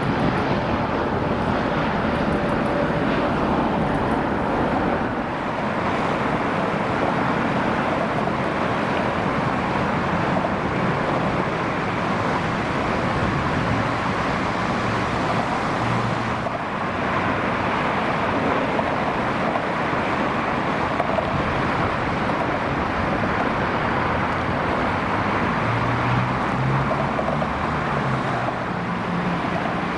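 Steady, even jet engine noise from airliners near the runway. A Boeing 747-8F freighter climbs away, then Boeing 737-800s land, with slight breaks in the sound about 5 and 17 seconds in.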